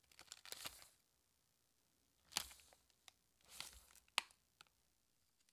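Plastic snack-bag packaging crinkling and rustling in a few short bursts as it is handled and a sticker card is pulled out of it, with one sharp crackle about four seconds in.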